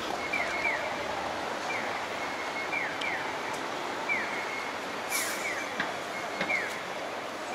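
Steady city street traffic noise, with repeated short, high, falling chirps, often in pairs, and a brief hiss about five seconds in.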